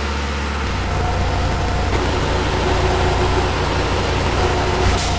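Tormach PCNC mill spindle running with a small end mill cutting a metal stamp blank: a steady mechanical hum and hiss, with a faint held tone coming in about two seconds in.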